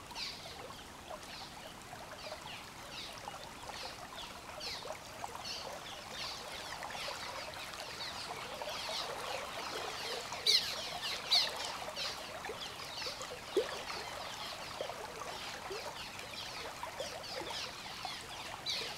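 Swift river current gurgling and splashing against a concrete wall, a steady wash of moving water full of small trickling splashes, with a few louder brief sounds about ten to fourteen seconds in.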